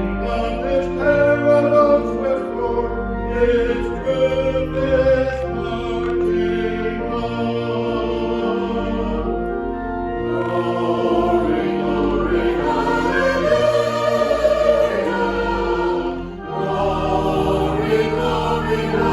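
Choir singing church music with instrumental accompaniment, held notes moving step by step over a sustained bass line.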